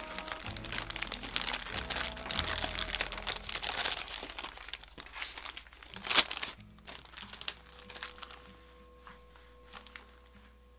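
Thin plastic piping bag crinkling and rustling as it is handled and squeezed around meringue, with a sharp crackle about six seconds in, then only scattered soft crinkles.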